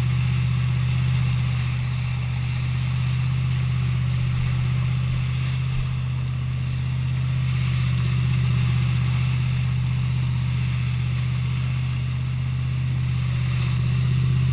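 Wake boat's inboard engine running at a steady speed, heard as one unchanging low drone, over the rushing wash of its wake.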